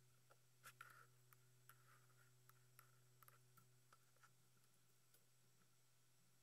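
Faint computer keyboard typing: scattered soft key clicks over a low steady hum, thinning out after about four seconds.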